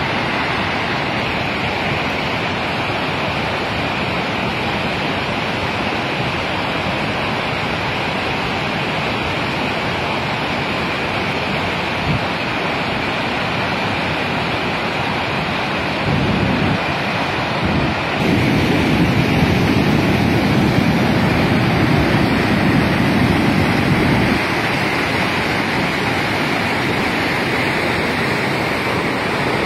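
Glacial lake outburst flood: a torrent of muddy, debris-laden meltwater rushing down a gorge in a steady, loud rush. About 16 seconds in the sound grows louder and lower for roughly eight seconds, then eases back.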